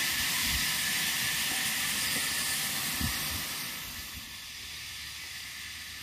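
Steady high-pitched hiss, easing slightly after about four seconds, with a faint low thump about three seconds in.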